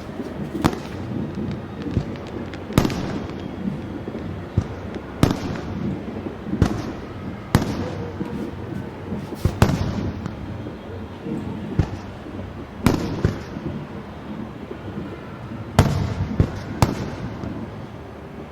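Aerial fireworks exploding, a steady run of sharp bangs, roughly one every one to two seconds and uneven in strength, over a continuous rumble of more distant bursts.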